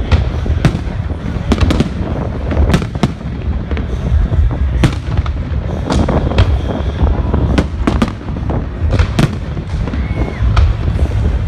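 Fireworks display going off: many sharp bangs and cracks at irregular spacing, over a continuous low rumble.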